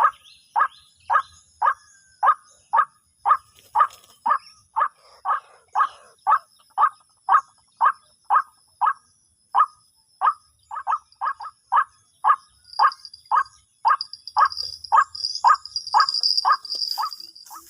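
White-breasted waterhen (ruak-ruak) calling: a monotonous string of short, identical calls, about two a second, that come closer together after about eleven seconds. Insects buzz high behind it, growing louder near the end.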